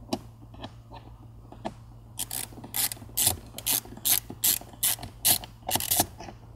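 Ratcheting screwdriver undoing a T20 Torx screw in car dash trim. A few light clicks, then about ten quick strokes of ratchet clicking, two to three a second.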